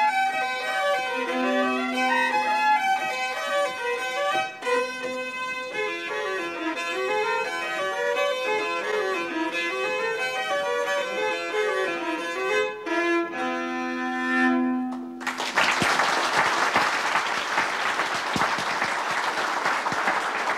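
Hardanger fiddles playing a Norwegian folk tune, the melody running over held low double-stopped notes. The tune ends about fifteen seconds in and the audience breaks into applause.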